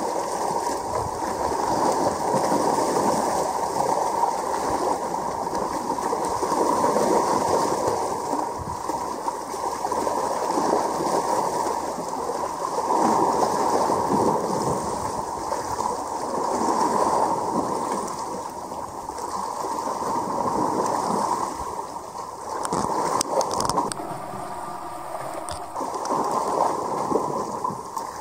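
Seawater washing and gurgling against the shore rocks, swelling and easing every few seconds.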